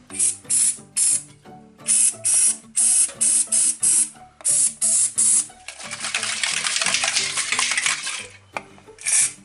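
Aerosol can of DuPont grease spraying in a quick string of short hissing bursts, then one long spray of about two and a half seconds, with a final short burst near the end. Background music plays underneath.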